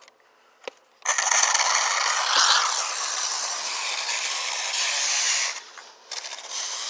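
A loud scraping hiss starts suddenly about a second in after a single click, runs for about four and a half seconds, then drops to a softer rustling noise.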